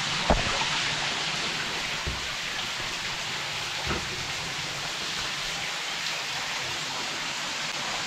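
Steady rushing hiss of falling water from a small waterfall in a rocky gorge, with a sharp knock just after the start and a couple of softer knocks a few seconds later.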